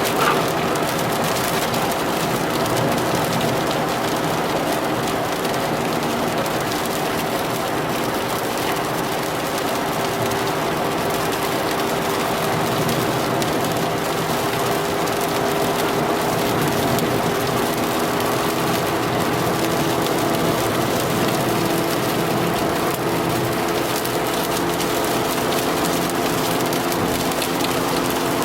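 Heavy rain on a moving car: a steady, even hiss of rain and wet road, with the car's engine humming underneath.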